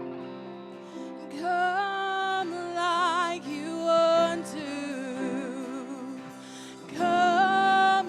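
Worship music: a melody with vibrato, which sounds like a singer, enters about a second and a half in over sustained guitar accompaniment.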